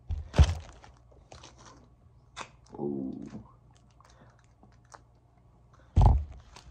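Sparse handling noises from a foil-wrapped gyro and a plastic drink bottle being held and moved about: a sharp knock about half a second in, a few light clicks and rustles, and a louder thump about six seconds in. A brief murmur of voice comes near the middle.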